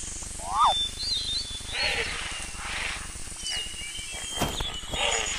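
Mixed wild animal calls: high whistling chirps and short pitch glides, with a few short rough calls about two, three and five seconds in, and a sharp click shortly before the last of them.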